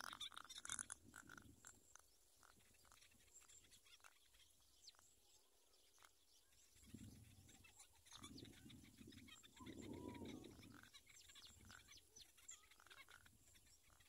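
Faint sounds of zebra dove squabs being fed in the nest: soft rustling with a brief squeak, loudest from about seven to eleven seconds in, over scattered small ticks and chirps.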